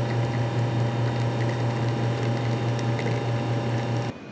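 Espresso machine pump humming steadily while pulling a shot into two shot glasses. The sound cuts off suddenly near the end.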